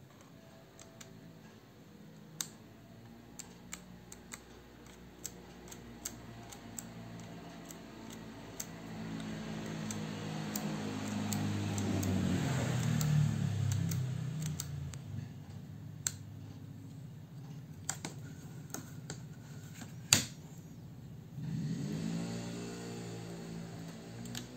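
Small metallic clicks and taps from handling an Ica Ideal 246 folding plate camera, its Compur shutter and focusing parts, with one sharper click about 20 seconds in. A low hum runs underneath, swelling in the middle.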